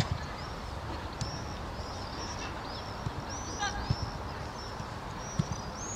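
Football match sounds: a few dull thuds, typical of a ball being kicked, over a steady background hiss, with many short high chirps throughout.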